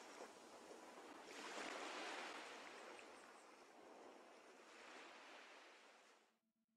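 Faint, even wash of hiss-like noise, swelling and easing a few times, then fading out and stopping near the end: the dying tail of the soundtrack.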